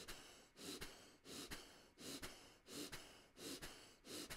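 Faint, short, forceful breaths by a person, repeating in a steady rhythm of about three every two seconds: pulsed breathing timed to an exercise.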